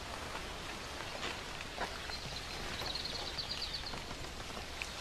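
Steady outdoor ambience hiss from a film soundtrack, with a faint, high, rapid bird trill about two and a half seconds in.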